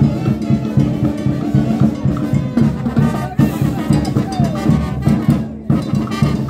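Brass band playing dance music, with a steady drum beat under the horns. The music drops out for a moment near the end and then picks up again.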